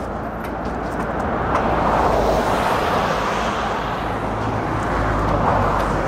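Road traffic: a steady rush of vehicle noise that swells twice, as if cars are passing, over a low rumble.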